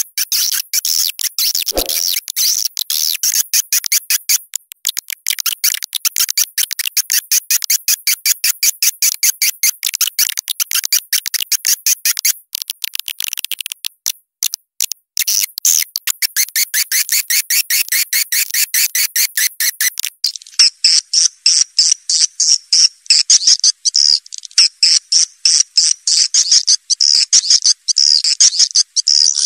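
Swiftlet lure call (suara panggil walet), the recording played through amplified tweeters to draw edible-nest swiftlets into a swiftlet house: rapid, dense high-pitched chirping and twittering, many calls a second. About twenty seconds in it shifts to a somewhat lower, more spaced chirping pattern.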